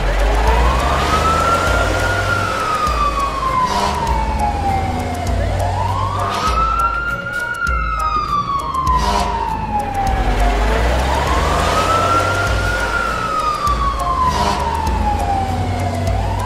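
Cartoon fire truck siren wailing in slow cycles, each a quick rise and a long falling slide, about every five and a half seconds. A low pulsing rumble runs underneath.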